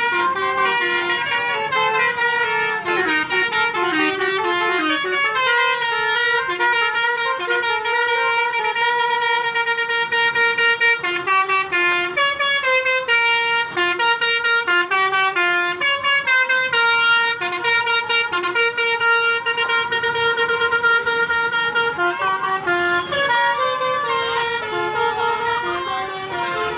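A bus's telolet basuri horn, a multi-tone musical horn, playing quick melodic runs of horn notes that step up and down in pitch, one tune after another.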